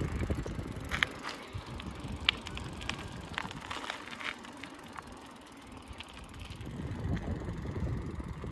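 Outdoor morning ambience: a low rumble that thins out in the middle and swells again near the end, with scattered short, high bird chirps.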